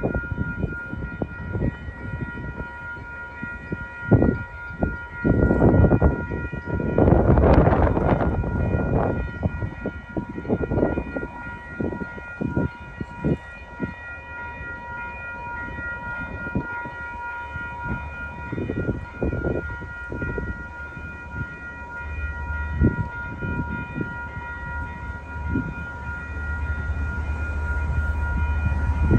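Grade crossing warning bells ringing steadily, over irregular low rushing noise. A low rumble from the approaching MBTA commuter train builds over the last several seconds.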